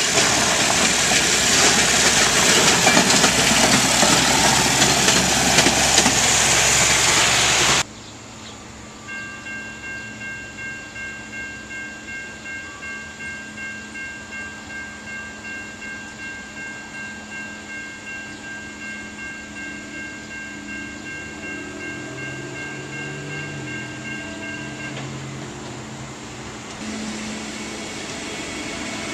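A small rail maintenance motor car passes close on the track with a loud, even engine and wheel noise that cuts off suddenly about eight seconds in. Then a grade-crossing bell rings, pulsing about twice a second. Near the end the diesel engine of an approaching ballast regulator comes up.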